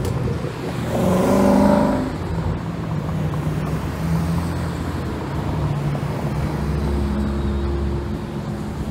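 Exhaust of Ford Mustang performance cars in slow street traffic: an engine revs up and drops back about a second in, followed by a steady low rumble of engines idling and crawling.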